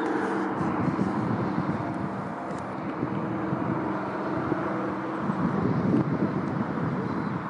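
De Havilland Mosquito's twin Rolls-Royce Merlin engines running, a steady drone. Wind buffets the microphone in the second half.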